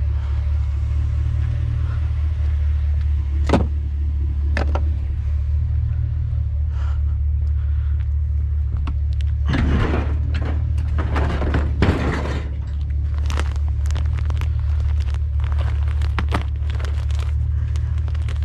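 A steady low rumble throughout. Over it come scattered sharp knocks and, about halfway through, a few seconds of clattering and rustling.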